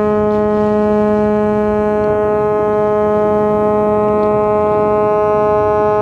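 Bulk carrier's ship horn sounding one long blast, a low, unwavering tone with many overtones, with a rushing noise underneath.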